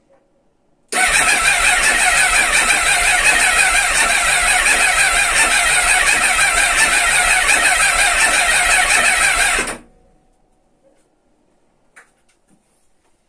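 Sport motorcycle engine started on the button and run for about nine seconds, loud and steady with a fast, even pulse, then cut off abruptly.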